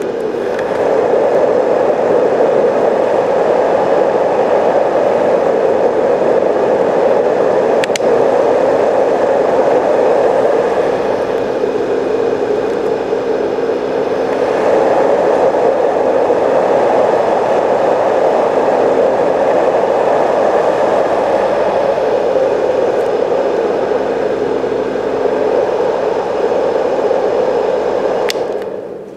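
Marpac Dohm-DS white noise machine's fan running: a steady rush of air whose tone and loudness shift over several seconds as its top holes and side slots are opened and closed, with a faint high-pitched note above it. A click about 8 seconds in, and another near the end as it is switched off and the noise falls away.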